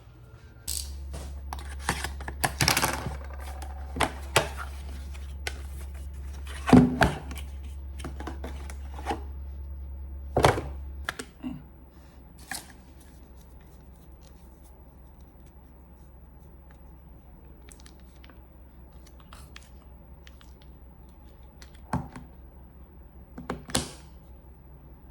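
Scattered clicks and knocks of small objects being handled, over a steady low hum that stops about eleven seconds in.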